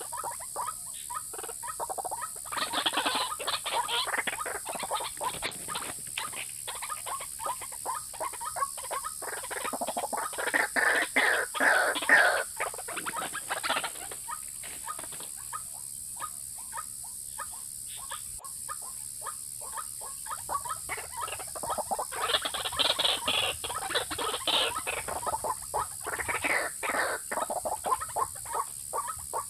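White-breasted waterhen calling in several bouts of rapid, harsh repeated notes, the loudest about ten to twelve seconds in: a lure call used to draw the birds in. A steady high hiss runs underneath.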